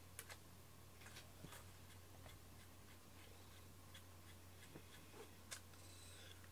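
Faint scratchy strokes of a wire slicker brush through a cat's fur, a few soft scrapes spread through the quiet over a steady low hum.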